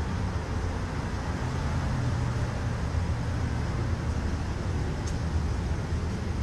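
Steady low rumble with a hiss over it, with no speech. It has the character of road or vehicle noise.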